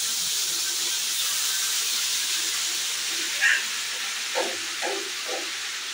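Lumps of homemade butter hissing and sizzling in a hot kadhai as they melt down for ghee, the water in them boiling off as steam. The hiss is steady and eases slightly toward the end.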